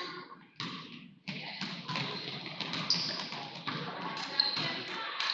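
Basketball game sounds in a gym: a ball bouncing on a hardwood court and the shuffle of players, over the general noise of spectators in the stands. The sound briefly drops out about a second in.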